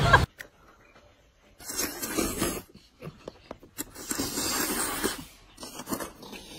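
Close-miked eating noises: two breathy slurping stretches, each about a second long, then scattered short wet clicks of chewing.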